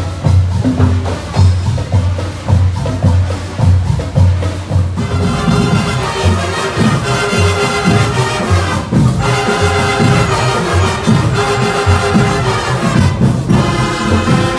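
Upbeat parade music with a steady drum beat; about five seconds in, sustained melody notes join the percussion.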